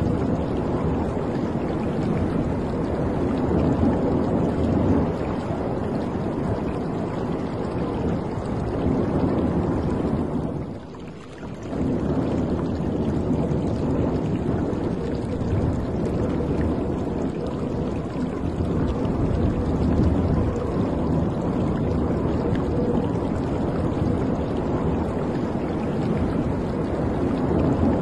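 Water rushing and splashing against the hull of a moving cruise ship, a steady churning wash that briefly drops away about eleven seconds in.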